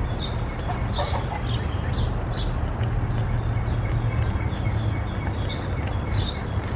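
Chickens calling: a string of short, high chirps, each falling slightly in pitch, about one or two a second, over a steady low rumble.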